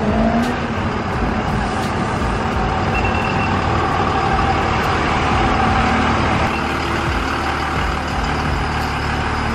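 Dodge Ram 2500 pickup's engine running as the truck drives slowly in and pulls up, with a short rise in engine pitch at the start.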